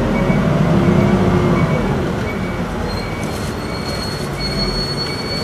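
Isuzu Erga city bus with its four-cylinder diesel and torque-converter automatic running low and slow as it pulls in to stop, with a thin, steady high-pitched brake squeal starting about halfway through.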